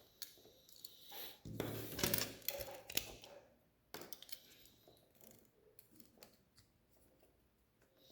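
Plastic Lego Technic pieces clicking and rattling as they are handled and snapped together, with a louder stretch of rattling about one and a half to three seconds in.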